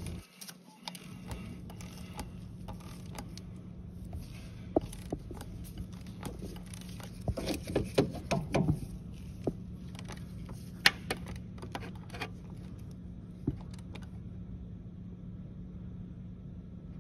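Scattered metallic clicks and knocks from a ratchet and socket on the crankshaft pulley bolt as the engine is turned over slowly by hand, with a cluster of clicks about halfway through and one sharper knock a little later. A steady low hum runs underneath.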